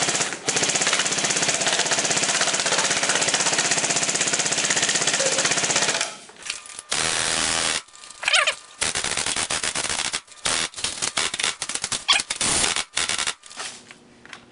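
Lancer Tactical M4 airsoft electric gun (AEG), running on an 11.1 V LiPo battery, firing full auto: one long continuous burst of about six and a half seconds, then a run of shorter bursts with brief gaps between them.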